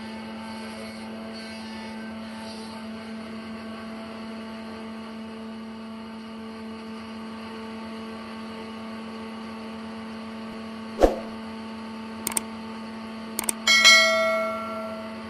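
Steady hum of running sawmill machinery. About two-thirds of the way through comes a single thud, then a few sharp clicks, and near the end a metallic clang that rings for about a second before dying away.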